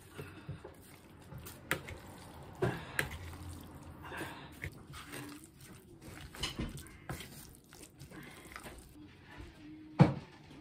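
Food preparation by hand: apple slices scraped off a wooden cutting board into a bowl, then pumpkin salad tossed with two metal spoons, giving soft, wet mixing noise and scattered clicks of the spoons against the bowl. A sharp knock near the end is the loudest sound.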